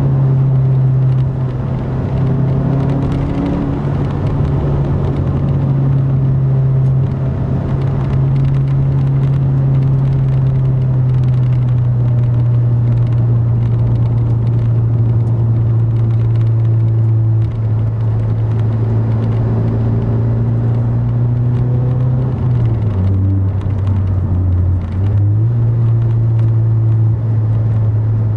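2010 Mazda 3's four-cylinder engine droning through its Corksport dual aftermarket exhaust, heard inside the cabin while cruising: a loud, steady low hum that drops in pitch for about two seconds near the end, then comes back up, over tyre and road noise.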